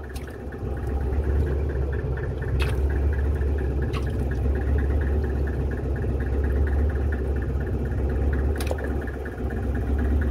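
Fishing boat's engine running steadily: a low hum with a light, rapid, even ticking over it.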